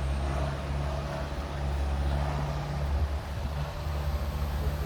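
An engine running steadily at a constant speed, a low drone.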